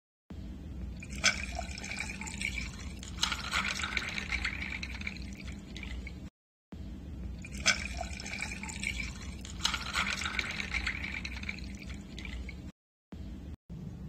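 Liquid being poured into a glass, with a sharp clink at the start; the same pouring and clink come twice, about six seconds apart.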